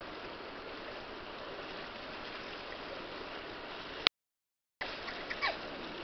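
Shallow river water rushing over rocks and around a wader's legs, a steady hiss. About four seconds in, the sound cuts out completely for under a second with a sharp click, then resumes.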